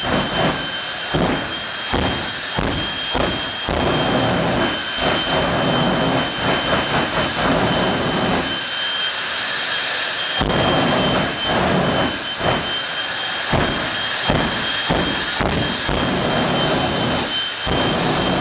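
Jet dragster's jet engine running on the start line: a steady high-pitched turbine whine over a rough, fluctuating rumble. The low rumble briefly drops away about halfway through.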